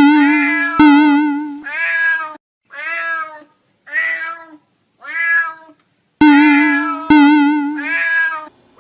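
Cat meowing over and over: about nine drawn-out meows at much the same pitch, several with a wavering tone, in a steady run with short gaps between them.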